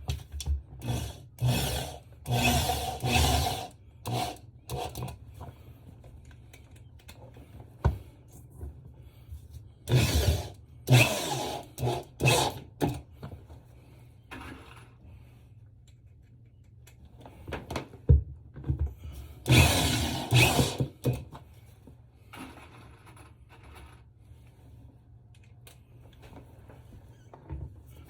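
Power drill driving screws through a PVC toilet flange into the floor, in short bursts of a second or less, grouped into three runs with pauses between.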